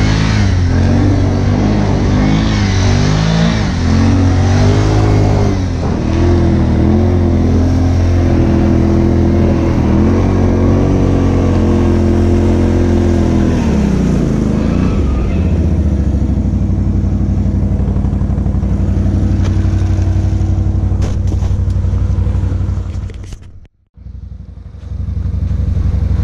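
Can-Am Outlander 570's Rotax V-twin engine running with the ATV standing still, its revs rising and falling for the first fifteen seconds or so, then settling to a steady idle. The sound cuts out briefly near the end.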